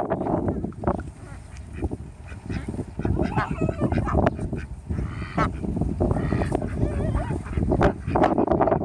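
A flock of white domestic ducks quacking as they are chased, with several harsh calls through the middle, over a low rumble.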